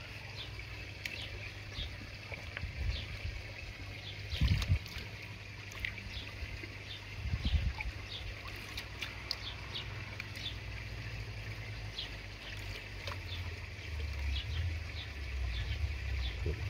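Light splashing and trickling of a hand lowering fish into shallow pond water, with two louder splashes about four and a half and seven and a half seconds in. Faint repeated bird chirps and a low steady rumble sit underneath.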